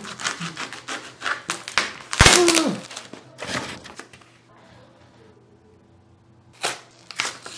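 Parcel packaging being torn open and handled: the padded mailer and cardboard crinkle and rustle in quick crackly bursts, with one loud thunk about two seconds in. After that it goes quieter, and a couple of sharp plastic clicks come near the end as the SSD's blister pack is handled.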